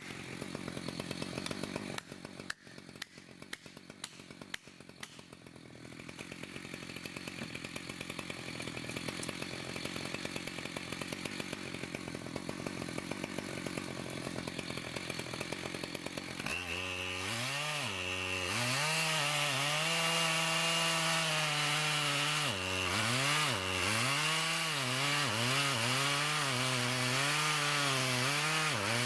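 Chainsaw running, quieter at first with a few knocks, then a little past halfway it comes in loud at high revs and cuts, its pitch dipping and recovering again and again as the chain bogs down under load in the wood.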